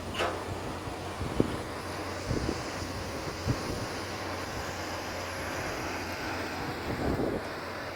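Komatsu PC200 hydraulic excavator's diesel engine running steadily, with a few sharp knocks, the loudest about a second and a half in.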